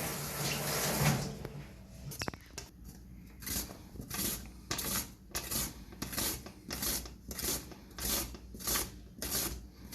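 Meat being cut in a steady series of short cutting strokes, about two a second, after a brief rustle at the start.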